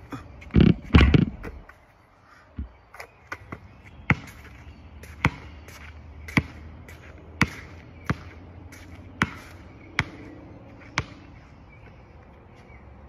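A basketball shot: a couple of loud ball impacts on the hoop and court about a second in. After that come sharp single taps roughly once a second.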